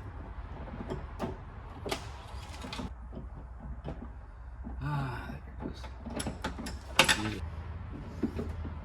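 Scattered clicks and knocks of hand tools and metal parts being worked inside a truck door, with a sharp clatter about seven seconds in.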